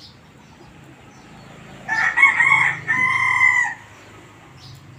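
A rooster crowing once, about two seconds in: a loud call of under two seconds with a short break before a held final note.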